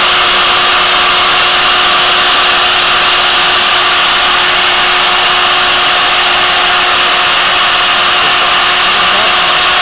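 Magnetic base drill's electric motor running steadily under power, a loud even noise with a constant whine.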